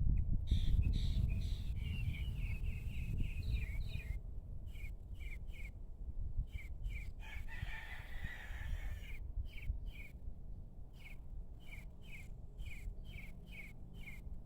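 A small bird gives short, evenly repeated chirps, two or three a second. About halfway through, a rooster crows once in the distance. A low rumble sits underneath and is loudest at the start.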